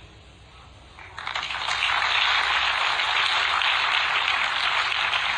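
Audience applauding, starting about a second in, swelling quickly and then holding steady.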